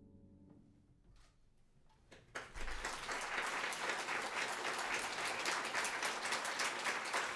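A held final chord of a live jazz piece fades away, then after a short quiet gap the audience starts applauding a little over two seconds in, and the applause carries on steadily.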